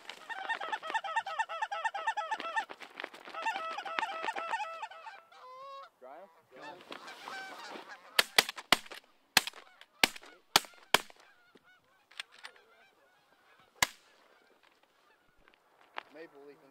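Canada geese honking, many calls overlapping, for about five seconds, with scattered calls after. Then a volley of about six shotgun shots fired in under three seconds, and one more shot a few seconds later.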